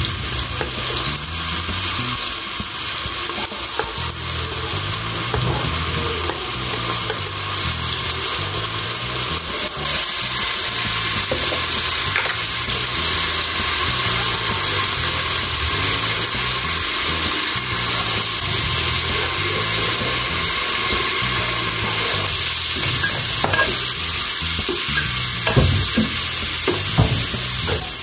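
Chopped onion and tomato sizzling steadily as they fry in an aluminium pressure cooker, stirred with a wooden spatula, with a few knocks near the end.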